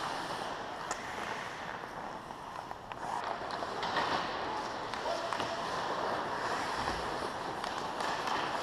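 Ice hockey rink ambience: skates scraping the ice with occasional faint stick or puck clicks, and players' voices echoing in the arena.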